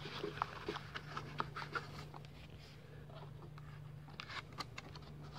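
Handling noise from a cardboard gift box: fingers scraping and tapping inside it and pulling out its foam insert, a scatter of small clicks and rustles over a faint steady low hum.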